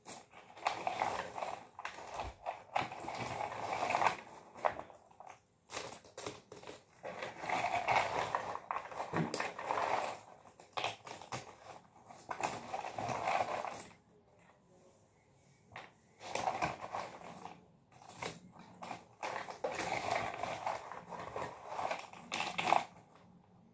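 Cardboard jigsaw puzzle pieces being sifted and slid about by hand on a tray: bursts of rustling and light clicking, with a quiet pause about two-thirds of the way through.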